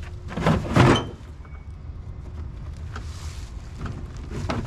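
Plastic leaf-chute tube of a riding mower's bagger being handled and fitted back together: loud scraping and rustling of plastic in the first second, then a few faint knocks.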